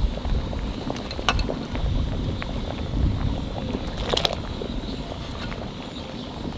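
A pot of rice and lentil khichuri at a rolling boil, bubbling steadily, with a few splashes as chunks of pumpkin are dropped in. The clearest splash comes about four seconds in.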